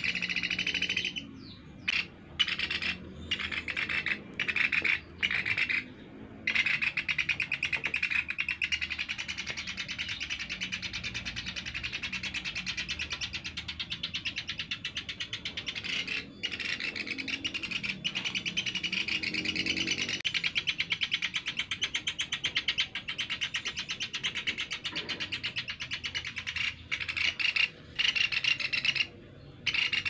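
Young pelatuk beras (caladi) woodpeckers calling: a fast, rasping chatter. It comes in short bursts for the first few seconds and runs almost without a break from about six seconds in, then breaks into short bursts again near the end.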